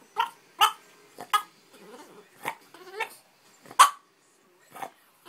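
Boston terrier "talking": a string of short barks and warbling vocal noises whose pitch slides up and down, the loudest a sharp bark near four seconds in. It is attention-seeking vocalising from a dog that doesn't like being ignored.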